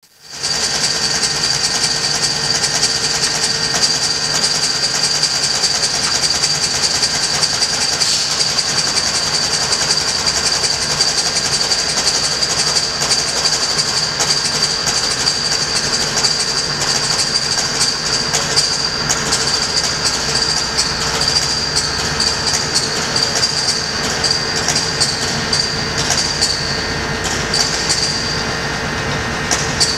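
QUAD electrodynamic shaker running a swept-sine vibration test on a spacecraft structural model: a steady, loud mechanical noise with a constant high whine.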